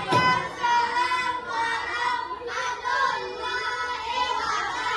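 A young child's high voice holding long notes that bend in pitch, with short breaks between them.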